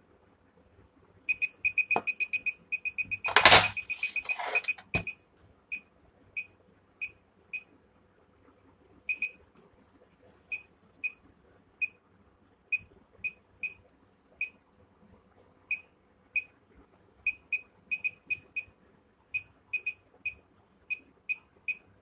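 Piezo buzzer on a homemade Arduino measuring tool giving short high beeps at irregular intervals, at times in quick runs. A loud knock comes about three and a half seconds in.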